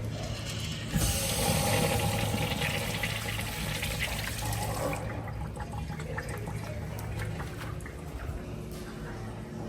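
Toilet flushing: a sudden loud rush of water about a second in, easing after about four seconds into quieter running water. A steady low hum runs underneath.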